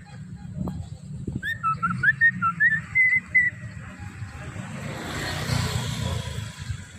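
Javan myna (jalak kebo) whistling a quick run of about ten short chirps, several of them rising. About five seconds in, a passing vehicle swells up as a rush of noise, over a steady low rumble.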